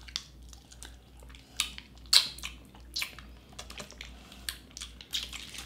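Wet mouth sounds of sucking and smacking at a sticky plum hard candy: a scattering of short clicks and smacks, a few louder ones about one and a half to three seconds in.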